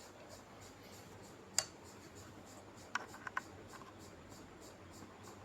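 A few faint, sharp clicks of mechanical keyboard keys with red linear switches being pressed: one about a second and a half in, then three quick presses around three seconds in.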